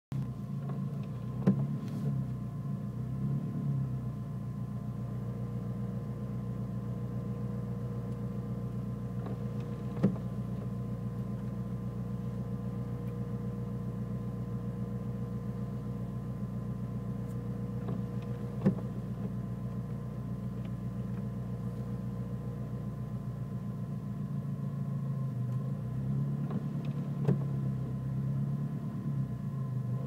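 Turbocharged Nissan Micra engine idling roughly, heard from inside the cabin; the uploader says this rough idle sometimes cuts out when braking. The hum is steady but uneven, and a sharp tick cuts through it four times, about every eight or nine seconds.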